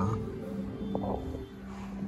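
Soft background music with long held notes.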